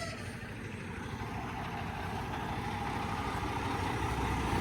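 Freight delivery truck's diesel engine running steadily, growing gradually louder.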